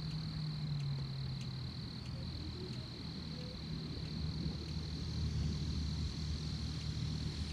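Crickets trilling in one steady, high-pitched continuous tone over a low, steady hum.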